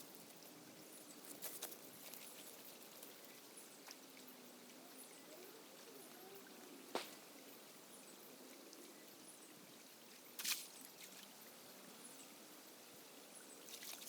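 Faint river water trickling, with a sharp click about seven seconds in and a brief splash about ten and a half seconds in as a cast net hits the water.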